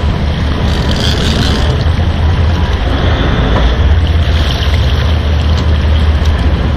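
Sportfishing boat's engines running with a steady low rumble, under an even wash of wind and water noise.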